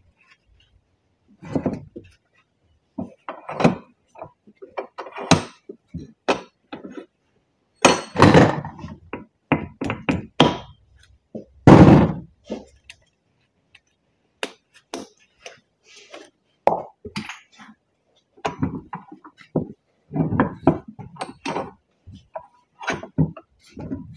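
Irregular knocks, clunks and short clattering of hand tools and metal parts being handled and struck against a steel axle shaft yoke as a new U-joint is fitted, with the loudest clatters about eight and twelve seconds in.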